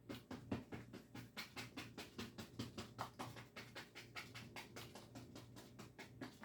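Paintbrush tapped rapidly against the canvas, dabbing in acrylic bush foliage: a quick, even run of light taps, about five a second.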